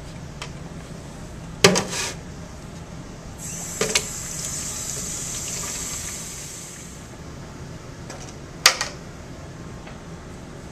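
Tap water running from a faucet into a plastic bucket in a stainless steel sink for about four seconds, filling it. Sharp clunks of the bucket against the sink come before and after the water.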